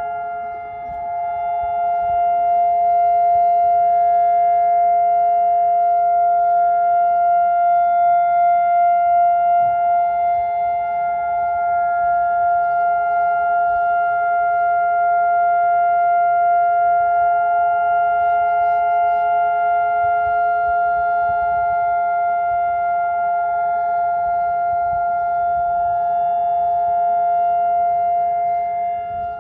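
Israeli civil-defence siren sounding the two-minute Holocaust Remembrance Day memorial siren: one steady, unbroken tone that neither rises nor falls, the signal for the nation to stand in silence.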